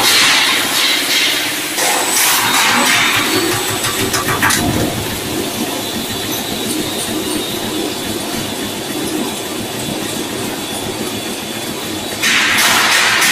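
Stainless-steel peanut frying machinery running: a steady mechanical clatter and rattle, with a louder hissing rush at the start and again near the end.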